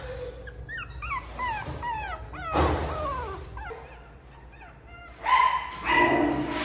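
Young puppies whining: a run of short, high squeaks, each falling in pitch, two or three a second. About five seconds in, a louder, steadier high-pitched sound comes in.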